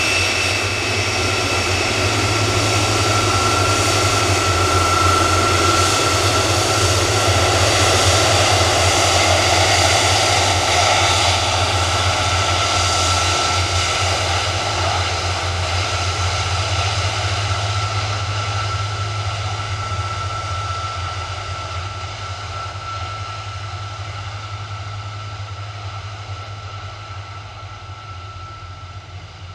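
Boeing 747-400's jet engines running with a steady whine over a broad roar, growing gradually fainter through the second half.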